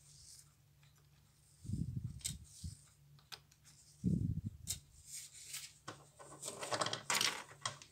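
Light metallic clicks and taps of tweezers and small watch movement parts being set into a metal mesh cleaning basket, with dull bumps on the workbench about two and four seconds in and a denser clatter and rustle near the end.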